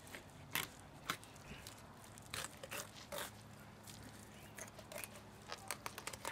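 Fillet knife slicing a salmon fillet off the backbone, crunching through the rib bones in a string of irregular sharp clicks and crackles.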